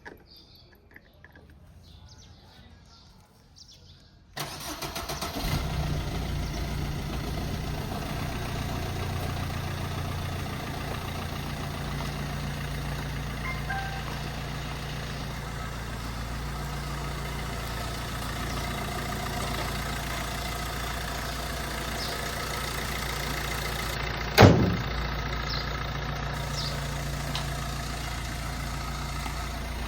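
Mahindra Thar engine cranked over briefly by the starter, catching about four seconds in and then idling steadily. A single sharp knock comes near the end.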